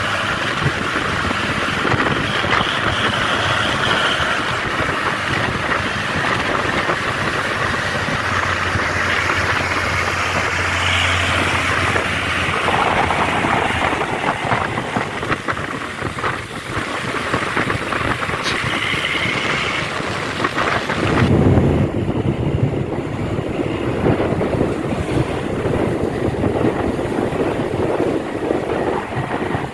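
Road traffic noise with heavy vehicle engines running. The sound changes abruptly about twenty seconds in, losing its hiss and turning deeper.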